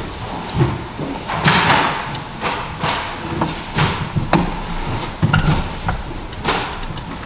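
Scattered knocks, thumps and clicks, with rustling and shuffling, from a congregation moving about in church pews.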